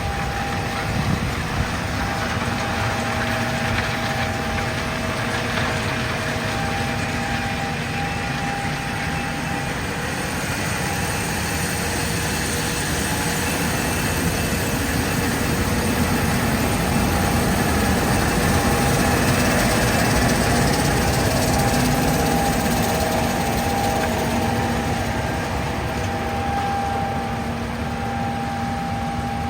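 Diesel engine of heavy farm machinery running steadily with a constant hum, growing slightly louder in the middle.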